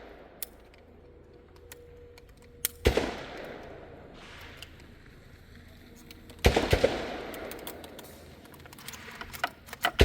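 Shots from a .410 revolver shotgun: two loud shots about three and a half seconds apart, each trailing off in a long echo, and a third at the very end. Fainter sharp pops and clicks fall between them.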